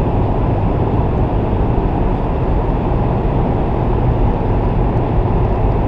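Steady, loud low rumble with no clear pitch.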